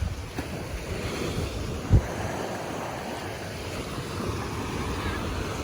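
Ocean surf washing onto a beach, a steady rush with wind on the microphone, and one short low thump about two seconds in.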